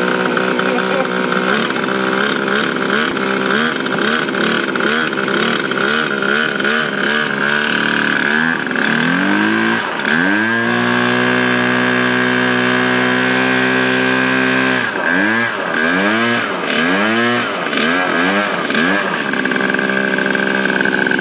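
Small two-stroke engine powering a homemade blender, revved up and down in repeated throttle blips, then held at a steady high speed for about five seconds in the middle. It is blipped again a few more times and settles to a lower idle near the end. A steady high whine runs under the engine sound throughout.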